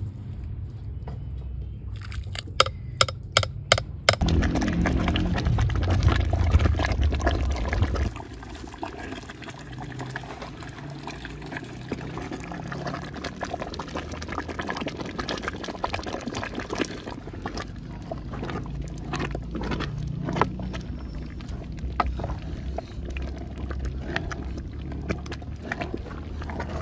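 Wooden spatula stirring hareesa, a wheat and beef porridge, in a large aluminium pot: liquid sloshing and bubbling, with small scrapes and taps of the spatula against the pot. A quick run of sharp knocks about three seconds in, then a louder stretch of sloshing liquid for about four seconds before it settles back to steady stirring.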